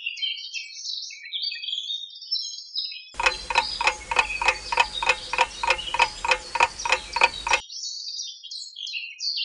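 Cartoon sound effects: birds chirping, then a clock ticking fast and evenly for about four seconds, about four ticks a second, with the birdsong returning after the ticking stops.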